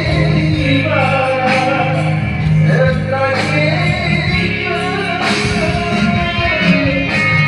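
Slow, melancholy Malay song: a voice holds long, bending notes over a steady instrumental accompaniment.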